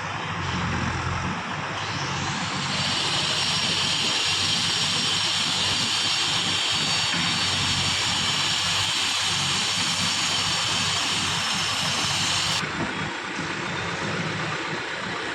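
Heavy construction machinery engine running steadily. A loud hiss joins in about three seconds in and cuts off suddenly about twelve seconds in.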